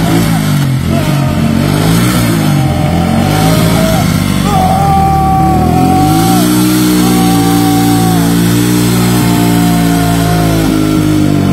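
Small motorcycle engine revving up and down over and over, then held at steady high revs from about six seconds in, while the bike is held back from the rear and cannot pull away.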